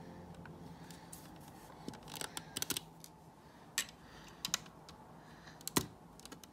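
Plastic LEGO bricks clicking as they are handled and pressed together: a quick cluster of sharp clicks about two seconds in, then single clicks spaced out over the next few seconds.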